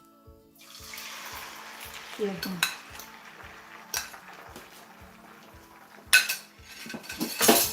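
Beaten eggs sizzling in hot oil in a frying pan, the sizzle starting about half a second in, while a metal spatula scrapes and knocks against the pan four times as the eggs are scrambled.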